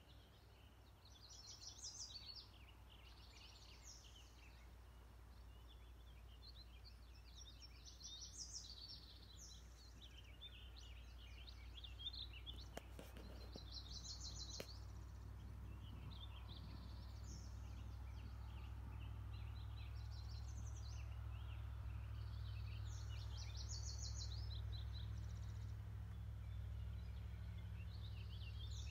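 Songbirds singing short, high trilled phrases every few seconds, over a low steady rumble of outdoor ambience.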